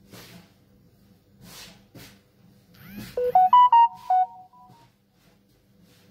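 A short electronic jingle, a quick run of about eight beeping notes that step up and then back down, sounds about halfway through, like a phone's ringtone or alert tone. Around it are soft thumps and rustles of hands kneading dough on a floured wooden board.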